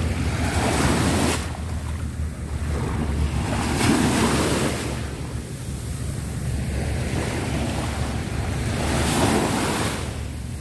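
Sea waves washing onto the shore, three surges of rushing surf about half a second in, around four seconds in and around nine seconds in, over a steady low rumble of wind on the microphone.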